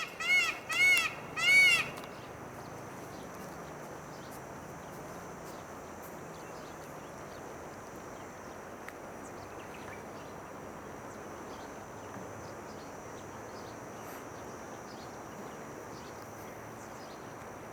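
Peacock (Indian peafowl) giving about four loud calls in quick succession in the first two seconds, each rising and then falling in pitch. After that only a steady outdoor hiss with a thin, high, steady whine remains.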